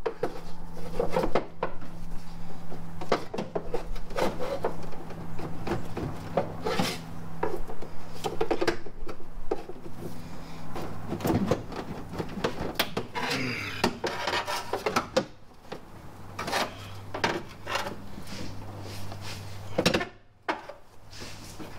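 Hand tools and parts clunking, clicking and scraping in a car's engine bay as a component is worked loose, with irregular knocks over a steady low hum.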